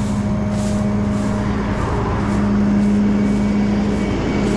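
A rollback tow truck's engine running steadily, a constant low drone, over the wash of passing highway traffic.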